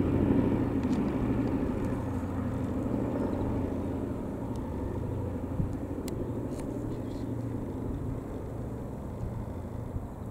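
Boeing B-17G Flying Fortress's four Wright Cyclone radial engines in flight, a low drone that fades steadily as the bomber flies away.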